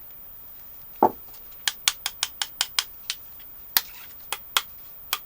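A soft thump about a second in, then about a dozen sharp, irregular clicks: the metal cans of 18650 lithium-ion cells knocking against each other as they are picked up and sorted by hand.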